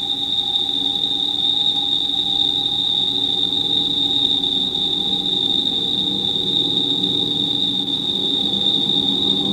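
Electronic soundtrack effect: a steady high whistling tone held over a low, fluttering drone, unbroken throughout.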